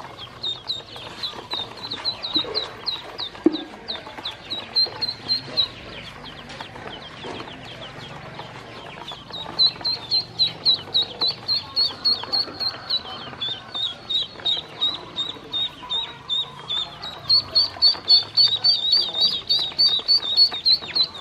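Domestic ducklings peeping, a rapid string of short, high calls at about three or four a second. The calls come in runs, with a quieter stretch of a few seconds between them.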